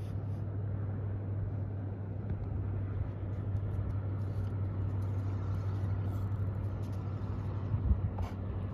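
Steady low hum of a running motor, holding one pitch throughout, with a single sharp click near the end.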